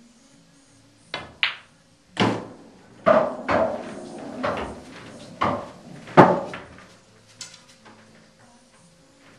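Pool cue striking the cue ball and the cue ball clicking into an object ball about a second in. A run of hollow knocks and rolling follows as the potted ball drops into the pocket and runs down inside the table.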